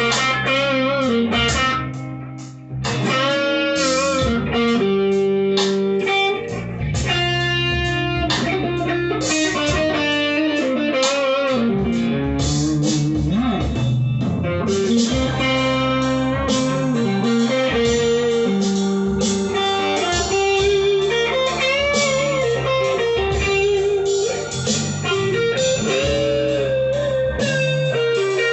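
Grote Les Paul-style electric guitar played through its neck pickup: blues lead lines of single notes with string bends and vibrato, with a brief drop in loudness about two seconds in.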